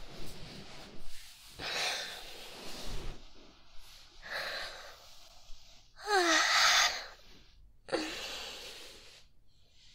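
A woman's breathy sighs and breaths, one after another about every second or two. The loudest, about six seconds in, has a short voiced sound that slides in pitch.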